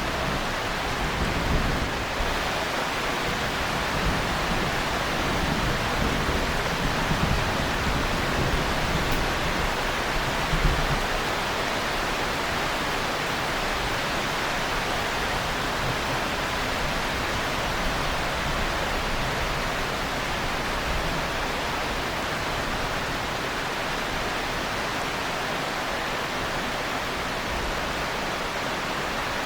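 Heavy rain falling steadily, a dense, even hiss. Low rolls of distant thunder rumble through the first ten seconds or so, then die away.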